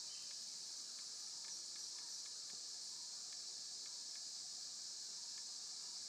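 Steady high-pitched insect chorus, with a few faint scattered ticks.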